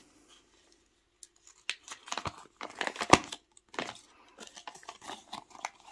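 A folded paper instruction sheet being unfolded by hand: irregular crinkling and rustling with a few sharper crackles, starting about a second and a half in.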